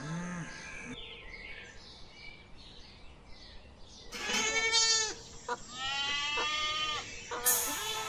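Young goats bleating: two wavering bleats, the first about four seconds in and the second about a second later.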